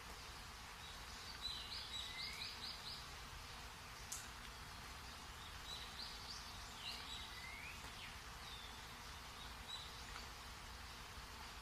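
Faint series of high, quick chirps and short sweeping whistles over a steady hiss, in two groups about two seconds and seven seconds in. A single sharp click comes about four seconds in.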